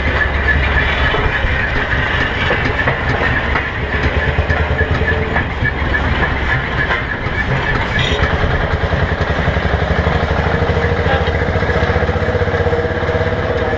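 Engine of a 1928 road roller running steadily with an even, low, rapid beat.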